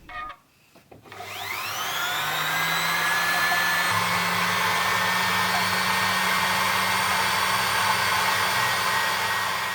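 Electric spinning wheel's sewing machine motor and flyer starting up about a second in, the whine rising in pitch and levelling off into a steady running whir. The flyer now turns on newly fitted bearings and runs without rattling.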